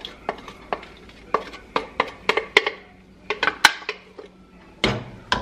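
Wooden spoon knocking and scraping against a plastic blender jar as thick curry paste is emptied into a pot: a run of sharp, irregular knocks, about two or three a second, with two louder knocks near the end.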